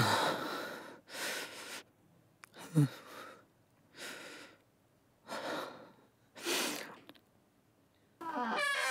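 A man's heavy, ragged breathing: about six loud gasping breaths a little over a second apart, one with a short voiced catch, the breathing of a panic attack.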